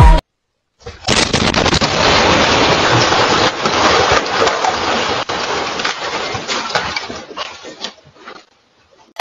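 A house explosion: a sudden blast about a second in, followed by a long rush of noise with many sharp crackles as debris flies, fading out over the next six seconds.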